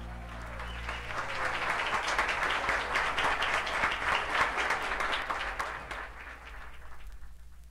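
Live audience applauding at the end of a jazz number, the band's last note dying away as the clapping begins. The applause swells about a second in and fades toward the end.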